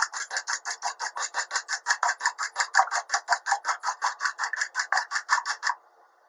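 Two eggs being beaten in a small metal bowl, the utensil scraping the bowl in fast, even strokes of about eight a second, stopping near the end.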